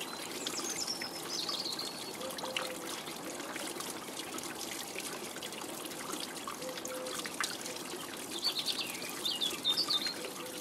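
Water trickling steadily, with short high bird chirps about a second in and again near the end.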